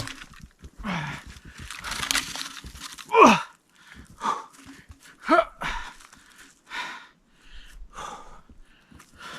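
A man panting hard with exertion, about one heavy breath a second, with a couple of strained, falling grunts, while carrying a heavy log out by hand.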